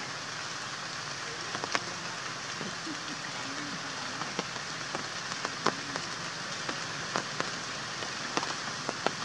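Steady rain falling, with heavier drops ticking irregularly through the hiss.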